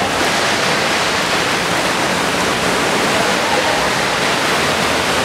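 Steady rushing wash of water splashing as water polo players swim and fight for the ball in the pool.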